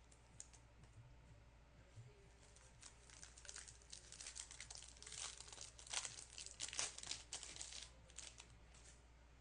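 Plastic-foil trading card pack wrapper crinkling and being torn open, a dense run of crackles loudest in the middle.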